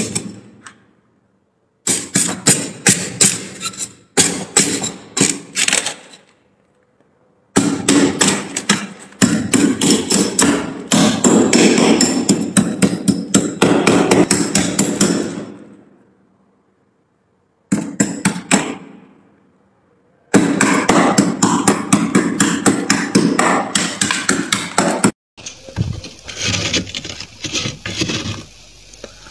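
Metal spoon scraping and chipping thick frost off a freezer shelf in rapid strokes. It comes in several bursts of a few seconds each with short silent gaps between them. Near the end it changes to a softer, hissy scratching.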